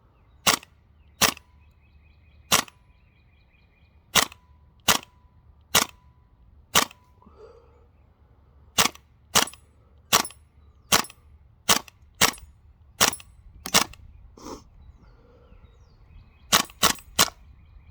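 Tokyo Marui M4 CQB-R gas blowback airsoft rifle firing about nineteen single semi-automatic shots at an uneven pace. Each is a sharp crack with the bolt cycling, and near the end three come in quick succession.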